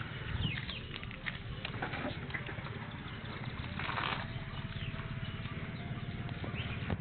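Bajaj Avenger 220's single-cylinder engine idling steadily through an aftermarket Cobra exhaust, with a rapid, even low thump. Birds chirp faintly in the background.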